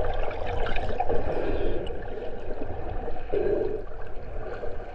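Water sloshing and gurgling close to the microphone.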